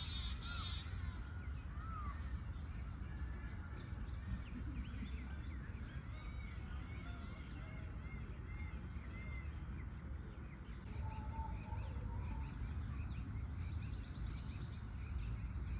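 Monsoon-season outdoor ambience: assorted small birds chirping and calling throughout, with short high buzzy trills a few times, over a steady low rumble.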